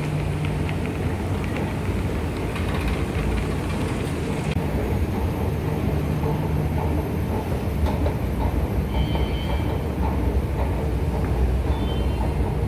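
An escalator carrying the rider down: a steady low mechanical rumble, with a few faint high-pitched tones around the middle and near the end.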